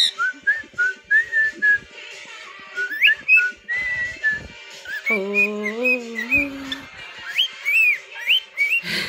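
Cockatiel whistling a string of short notes, many sliding upward, over background pop music.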